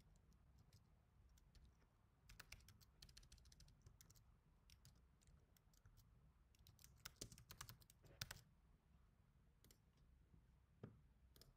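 Faint computer keyboard typing: two short runs of keystrokes, the first about two seconds in and the second about seven seconds in, over a low steady hum, with a few single clicks near the end.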